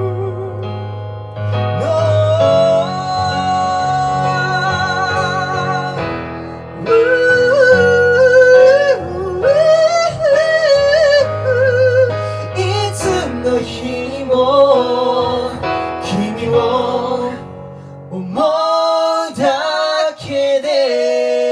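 Two male singers' voices holding long, wavering sung notes over keyboard and bass accompaniment. About 18 seconds in, the accompaniment drops out and the voices carry on alone.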